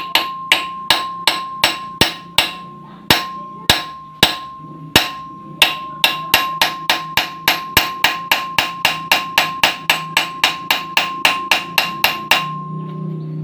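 A hand hammer striking steel ball-joint parts over and over, each blow ringing briefly. The blows come unevenly at first, then settle into a steady run of about three a second that stops near the end.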